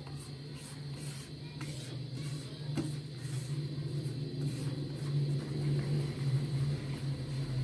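Flour frying in hot ghee in a wok, bubbling and sizzling with faint crackles as a spatula stirs it, over a steady low hum.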